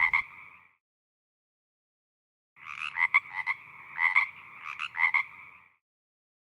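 Frog croaking. A short call ends about half a second in, and after a silent gap a run of pulsed croaks lasts about three seconds.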